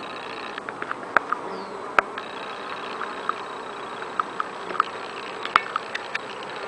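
Honeybees at a busy hive entrance: a steady buzz of many bees, with single bees buzzing briefly past close by and scattered sharp ticks through it.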